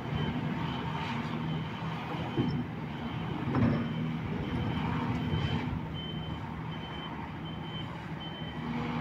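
Reversing alarm of heavy earthmoving machinery, a high beep repeating about three times every two seconds, over the steady low running of a large diesel engine.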